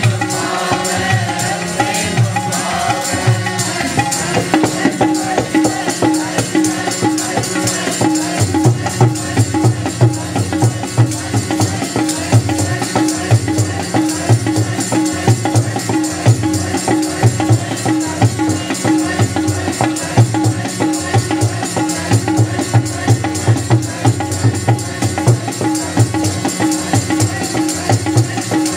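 Kirtan music: a harmonium holding steady reedy chords over a fast, regular hand-drum beat, with constant jingling percussion on top.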